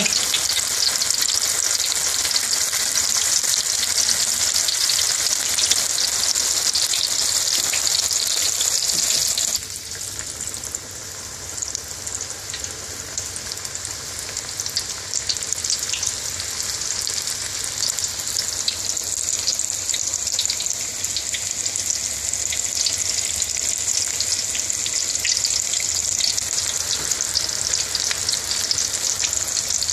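Onion bhaji batter deep-frying in hot oil in a wok: a dense, steady sizzle and crackle of bubbling oil. It drops suddenly about a third of the way through, then slowly builds again.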